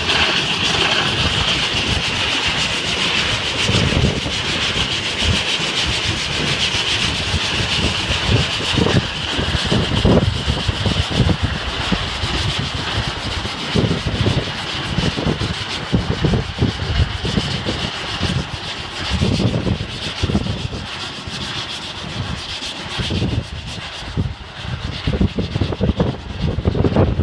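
Mount Washington Cog Railway steam locomotive hissing steadily as it creeps past, the hiss fading as it moves off. Gusty wind buffets the microphone throughout.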